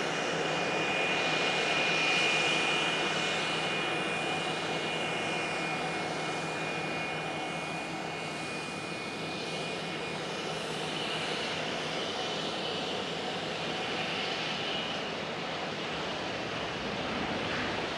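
Gulfstream G650ER business jet's Rolls-Royce BR725 turbofans: a steady rush with a high whine, loudest about two seconds in and slowly easing.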